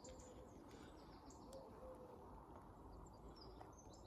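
Near silence: faint outdoor background with a few short, high bird chirps scattered through it.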